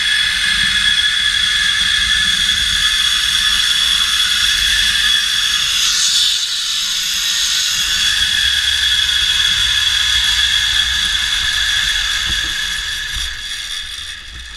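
Zip-line trolley pulleys running fast along the steel cable, giving a steady high whine. It fades away over the last couple of seconds as the trolley slows into the landing platform.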